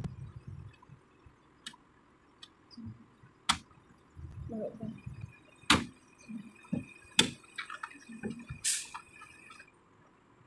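Scattered sharp knocks or clanks, four strong ones spread over several seconds. Through the second half there is a thin, steady high tone.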